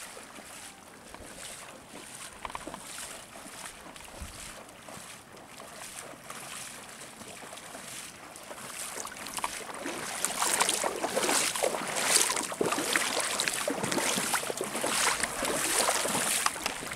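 Lake water splashing and sloshing around a wader's legs in the shallows, faint at first and growing louder and busier about ten seconds in.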